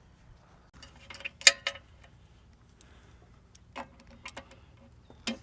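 Sharp plastic-and-metal clicks and clatter as a laser receiver and its cord are handled and fitted onto a mounting pole: a few separate clicks, the loudest about a second and a half in.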